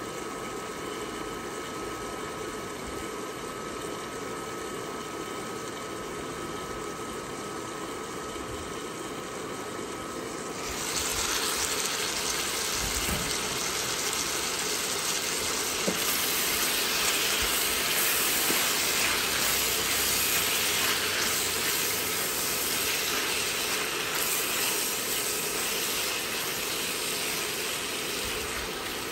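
Sliced chayote simmering in a wok under a glass lid, a steady hiss of boiling liquid. About ten seconds in the lid comes off, and the sizzle gets suddenly louder and brighter as the sauce cooks down in the open pan. There is a low knock a couple of seconds later.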